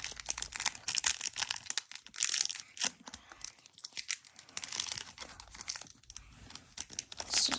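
Foil wrapper of a Pokémon Shining Fates booster pack crinkling and tearing as it is worked open by hand, a dense run of short crackles with a couple of brief lulls.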